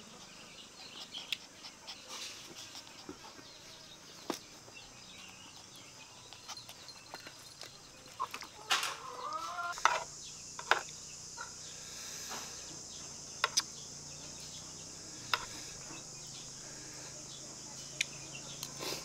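Scattered sharp clicks and crunches of puppies chewing on pork trotter pieces. About nine seconds in there is one short animal call that bends in pitch. A steady high hiss joins about ten seconds in.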